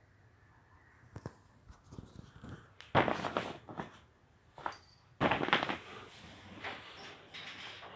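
Scuffling and scratchy rustling from a Norwegian Forest cat at play, with a few light clicks early and two louder scratchy bursts, one about three seconds in and one about five seconds in.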